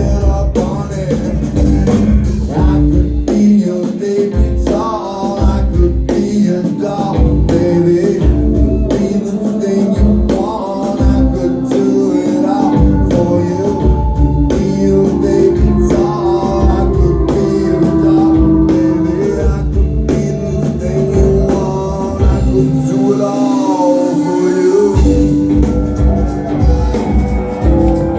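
A live band playing an instrumental stretch of a rock song, with drums and bass keeping a steady beat under melodic lines. The bass drops out briefly near the end.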